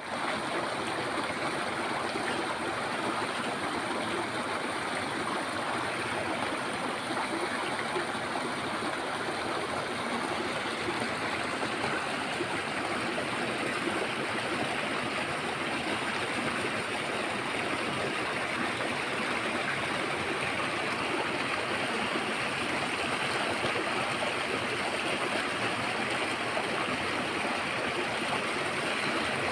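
Stream water flowing steadily and evenly, with a thin, steady high tone above it.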